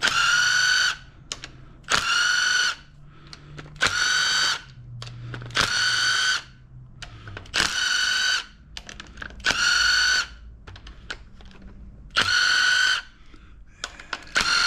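Cordless power tool spinning bolts out of an engine in short bursts of under a second, about every two seconds, with a steady whine. Small metal clinks come between the bursts.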